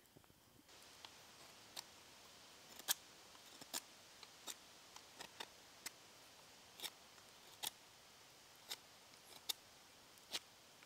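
Knife blade whittling a wooden stick, each cutting stroke a short, sharp snick, about one a second at irregular intervals.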